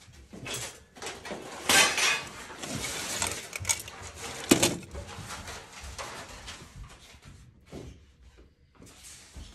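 Loose nails rattling and clinking inside a clear plastic compartment box as it is picked up and tilted, with two sharp knocks, about two seconds in and about four and a half seconds in. Quieter scattered clicks of handling follow.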